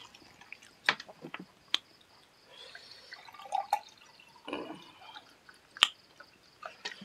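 Wet mouth clicks and smacks of a person chewing a mouthful of curry and rice, irregular sharp clicks with a few softer squelching stretches in the middle.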